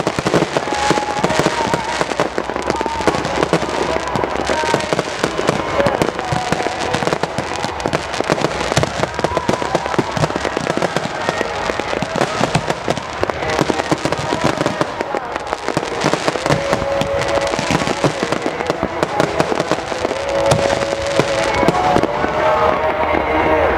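Aerial fireworks going off in rapid succession: dense, unbroken crackling and popping from glittering star bursts.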